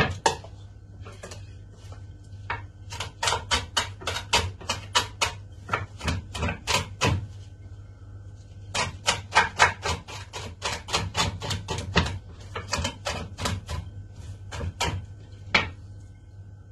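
Knife chopping a pile of fresh herbs, garlic and coarse salt on a cutting board: quick, sharp strikes of the blade at about three a second, in runs with a short pause partway through.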